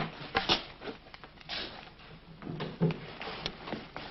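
Scattered clicks and knocks of a wooden office door being opened.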